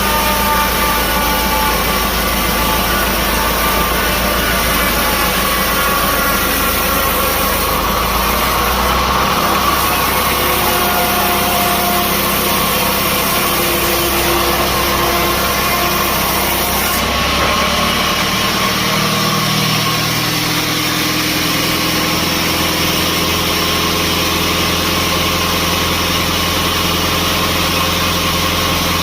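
Sawmill machinery running steadily, with engine hums whose pitch shifts about a third of the way in and again about two-thirds of the way in.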